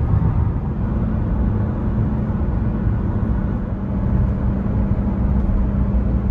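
Steady road noise inside a moving car at freeway speed: a low rumble of tyres and engine, with a faint steady hum setting in about a second and a half in.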